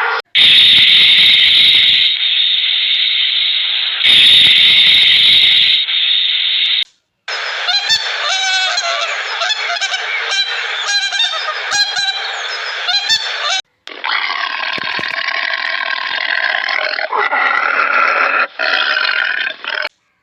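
Animal calls in several clips cut abruptly one after another: first a loud hissing stretch, then a rapid chatter of many overlapping short calls, then further drawn-out calls.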